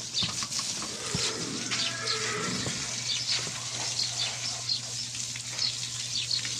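Water spraying from a garden hose onto a horse's head and neck and splashing off the wall, a steady hiss with spattering. A short animal call sounds about two seconds in.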